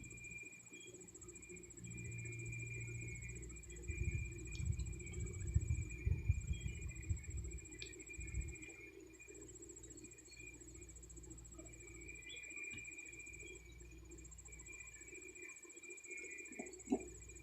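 Crickets trilling steadily under a low steady hum of honeybees around an opened hive. A low rumble on the microphone, between about four and eight and a half seconds in, is the loudest part.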